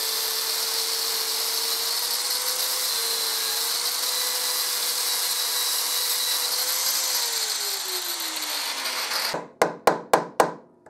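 Angle grinder with a cutting disc grinding the rivet heads off a motorcycle drive-chain link, a steady whine over the grinding noise. About seven seconds in the motor's pitch falls and the grinding stops. Then come about five quick sharp taps as a screwdriver is worked against the chain's side plate to lever it off.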